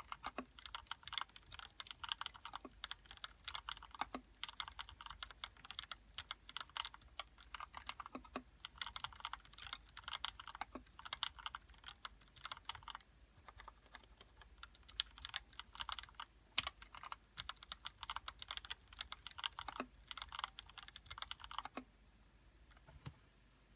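Typing on a GH60 Satan mechanical keyboard with lubed Gateron Red linear switches and shorter, roughly 70 g springs from vintage Cherry MX Blacks, which somewhat muffle the clack. Fast, continuous keystrokes with a few heavier strikes, stopping about two seconds before the end.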